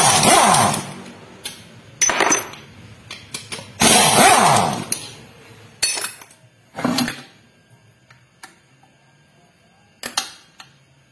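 Metal clanking and scraping of tools and transmission gear parts being handled as a manual transmission is taken apart. There are three loud bursts in the first five seconds, then a few short knocks.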